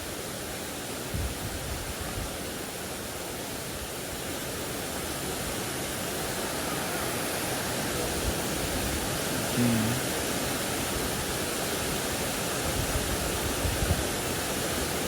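Waterfall pouring, a steady full rushing of falling water.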